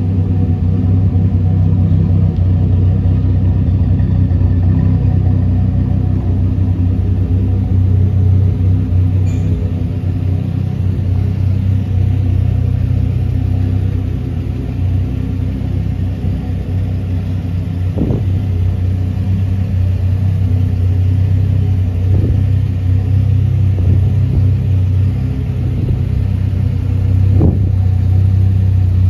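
The Dodge Ram SRT-10's Viper 8.3-litre V10 idling with a steady, deep rumble, with three short blips in the second half.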